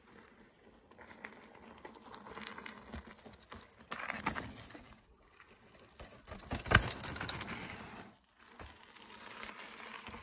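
Mountain bike tyres crunching and rolling over a dirt and gravel trail, in uneven stretches, with a sharp knock about seven seconds in.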